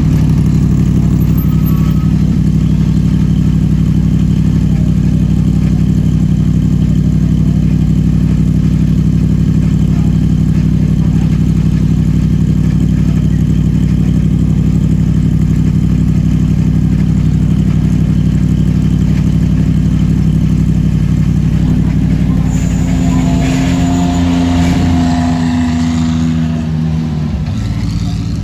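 Mercedes-AMG GT3 race car's V8 idling steadily close by. Near the end a second race car, a Lamborghini Huracán GT3, moves off slowly, its engine note rising and falling over the idle.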